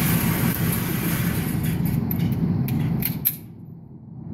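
A handgun being handled and readied: a few short clicks from about halfway through to near the end, over a steady low rumble that drops away suddenly late on.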